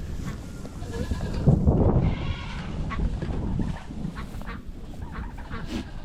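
Goat bleating once, briefly, about two seconds in, over a steady low rumble.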